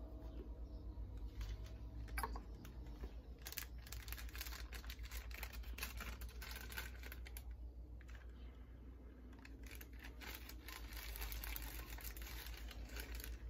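A small plastic bag of pipe tobacco crinkling and rustling as it is handled, in two long spells of rapid crackles, over a low steady hum.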